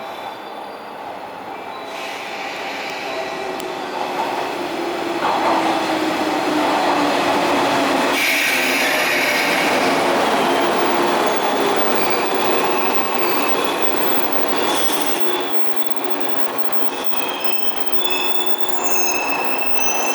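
JR West 113 series electric train pulling into the station, its running noise growing louder over the first few seconds and then holding steady. Near the end, high squealing tones set in as it brakes to a stop.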